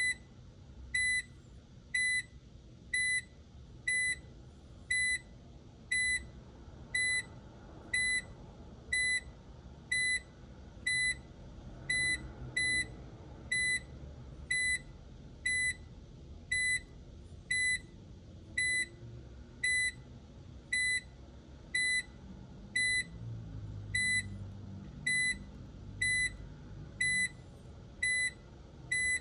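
Speed Queen commercial washer's electronic control panel beeping: short, identical high beeps about once a second, evenly spaced, as the washer's settings are being programmed from the keypad.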